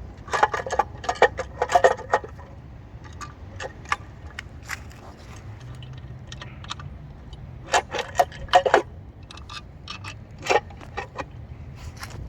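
Metal clinking and clattering from tools and bolts being handled while a water pump is worked off an engine, in a few short bursts of sharp clinks.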